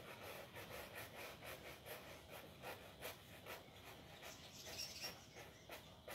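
Faint brushing of a shoe: a brush scrubbing back and forth over the shoe in quick, even strokes, about three or four a second.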